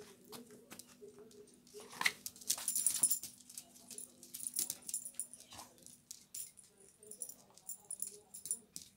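Small shaggy dog making short, repeated vocal sounds as it moves about on brick paving, with many quick clicks and scrapes; the busiest, loudest stretch comes between about two and three seconds in. A steady low hum runs underneath.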